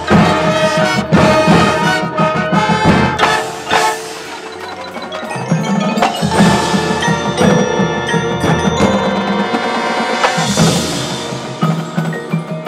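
High school marching band playing its field show: brass with drums and the front ensemble's mallet percussion (marimbas and bells). It enters loudly at the start with a string of accented hits over the first few seconds, then moves into sustained chords.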